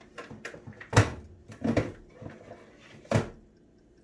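Hard plastic parts of a slushy machine knocking and clattering as its top is taken off: a few sharp knocks with lighter clicks between them, the loudest about a second in and another a little after three seconds.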